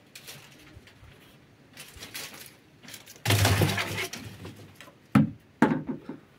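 A sudden loud crash or clatter lasting about a second, followed by two sharp knocks near the end.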